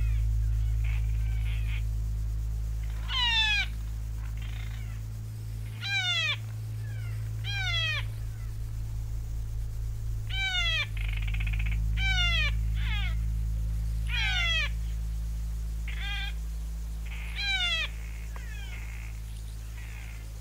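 A series of about nine short mewing animal calls, each sliding steeply down in pitch, coming irregularly every one to three seconds over a steady low drone.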